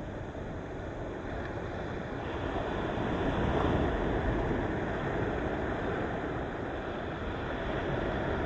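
Ocean waves washing in, a steady rush that swells louder about three seconds in and stays up.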